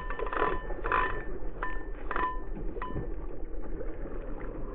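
Spinning reel's drag giving line in short whining bursts as a hooked sea trout thrashes at the surface, the bursts coming less often and fading toward the end, over a steady low rumble.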